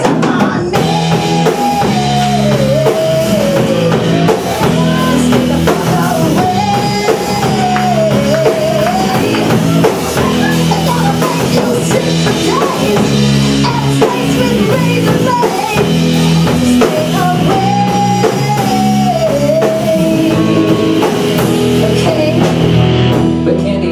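Live grunge-rock band playing loud: drum kit, bass, electric guitar and keyboard, with a melody wavering over the top.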